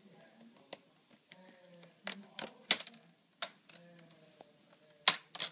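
Plastic screen bezel of a Sony Vaio PCG-5G3L laptop being handled and fitted onto the lid: about seven irregular sharp plastic clicks and knocks, the loudest a little under three seconds in and two close together about five seconds in.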